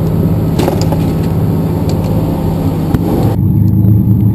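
A boat's engine droning steadily, with a few light clicks over it. About three and a half seconds in, the sound changes abruptly to a lower, duller engine hum.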